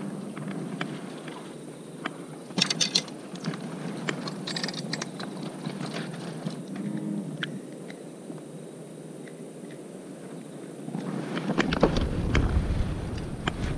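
Scattered clicks and taps over a faint steady hum, then about eleven seconds in a louder low rumble of the camera and microphone being handled.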